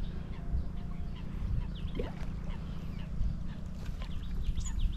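Wild birds calling around a marsh: many short chirps and calls, over a steady low rumble.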